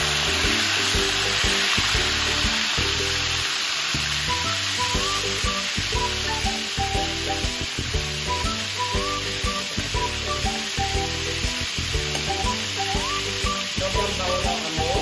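Pork chops shallow-frying in hot oil in a stainless steel electric skillet, making a steady, dense sizzle. The sizzle is loudest in the first moment as a second chop goes into the oil, then it settles. Background music plays faintly underneath.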